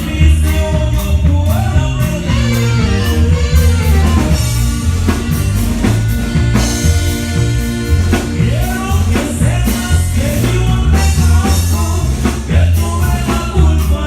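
Loud Latin dance music with singing, a steady drum beat and a heavy bass line.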